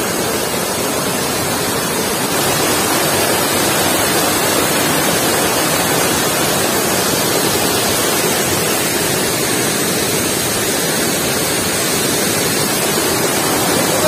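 Waterfall: water pouring over rock ledges, a steady rushing.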